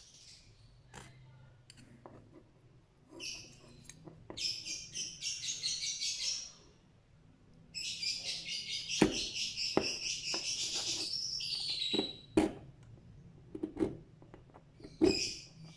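Needle file rasping against a diecast metal toy car part in quick back-and-forth strokes, in two runs of a few seconds each, with a few sharp clicks of metal on metal between them.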